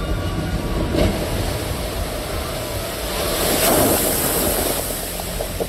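Flume-ride boat hitting the splash pool at the bottom of the drop, with a thump about a second in, then a rushing, hissing wave of spray that sweeps over the viewing area and peaks around four seconds in before easing.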